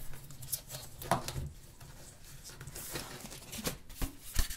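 Handling noise from lifting a smartphone and its packaging out of a box: scattered light taps and knocks, with a brief rustle of packaging.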